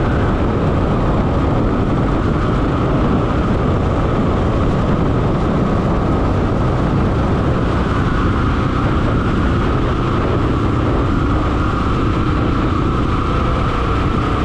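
Royal Enfield motorcycle being ridden at road speed: a steady, unbroken rush of engine, tyre and wind noise.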